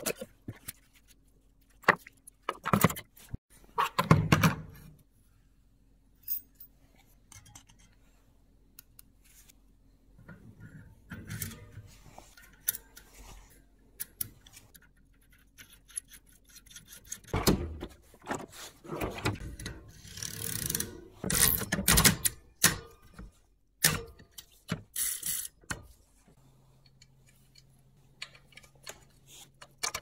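Irregular clicks, rattles and rubbing from hand work on bicycle drivetrain parts, including the steel cogs of a bicycle cassette clinking as they are fitted onto the rear hub.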